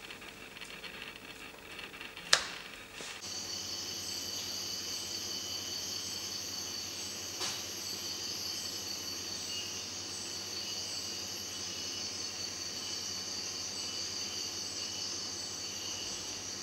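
A sharp click a couple of seconds in, then from about three seconds in a steady chorus of tropical rainforest insects: a high, even buzzing with a faint chirp repeating about every three-quarters of a second.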